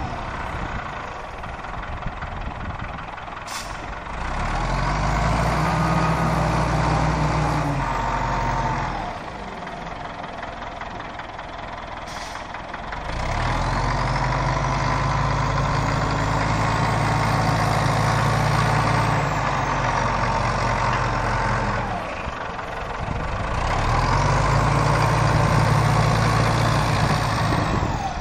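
1981 Caterpillar 518 skidder's diesel engine working up to high revs three times as the machine drives, and falling back toward idle in between. A whine rises and falls with each pull.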